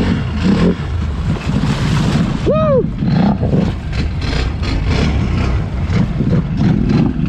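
Can-Am Renegade XMR 1000R ATV's V-twin engine running under load as the quad wades through deep water, with water churning and splashing around it. A short high rising-and-falling whoop about two and a half seconds in.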